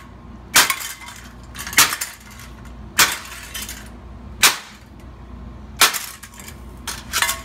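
Ceiling fan being smashed: six sharp crashing blows at a steady pace, about one every second and a quarter, each with a brief clinking ring of breaking parts.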